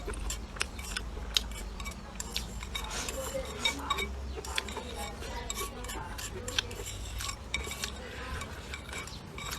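Eating utensils clinking and scraping against a bowl during a meal: many short, irregular clicks and taps.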